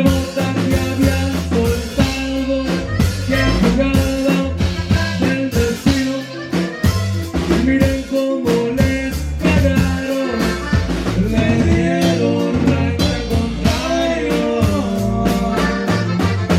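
Live band music: a singer over a drum kit, guitar and bass, with a steady beat.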